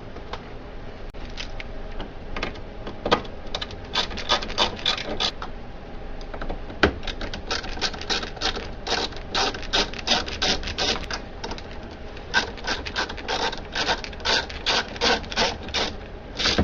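Hand screwdriver taking out the screws that hold a Dell 1815DN laser printer's fuser drive assembly: quick runs of sharp metallic clicks, in two long spells with a short pause between them.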